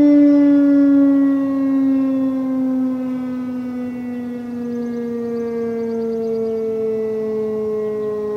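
Federal Signal Thunderbeam RSH-10 rotating siren winding down, its low tone sliding slowly and steadily lower in pitch. It grows quieter about two to three seconds in as the rotating horn turns away.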